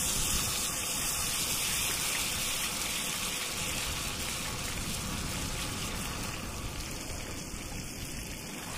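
Salmon fillets sizzling in a hot frying pan, loudest just after lemon juice is squeezed in, then slowly easing off.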